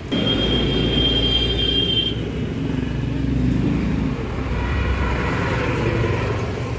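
A motor vehicle's engine running, a steady low rumble, with a thin high whine over the first two seconds.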